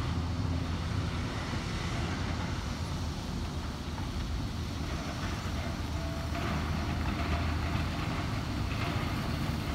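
Steady low rumble of diesel trucks and construction machinery running.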